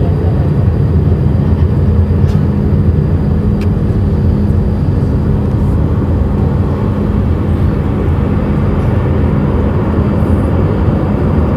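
Steady cabin noise of a jet airliner in flight, heard at a window seat by the wing: the turbofan engine and airflow rushing evenly, with a constant low hum underneath.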